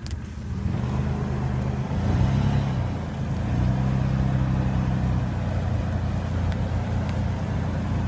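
Toyota 4Runner SUV's engine running as it drives slowly towing a trailer loaded with branches, a steady low engine note that swells about two seconds in, eases near three seconds, then holds steady.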